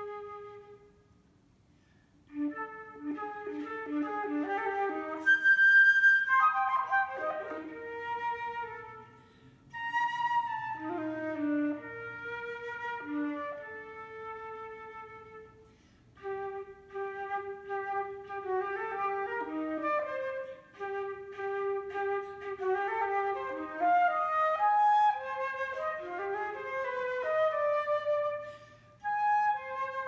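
Solo concert flute playing an unaccompanied melody. Held notes, short repeated low notes and quick runs follow one another, with a pause of about a second near the start and brief gaps between later phrases; the highest, loudest note comes about five seconds in.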